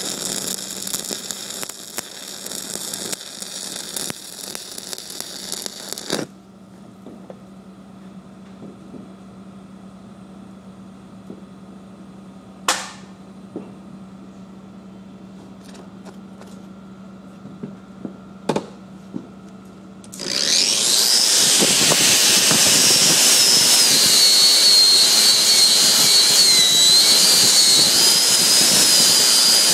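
Welding arc crackling and hissing, which stops after about six seconds. Then a steady low hum with a few sharp clicks, until about twenty seconds in an angle grinder starts and runs loud against steel, its high whine wavering under load.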